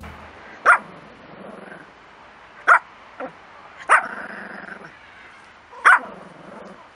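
Pomeranian barking: four sharp single barks about two seconds apart, with a softer one between the second and third.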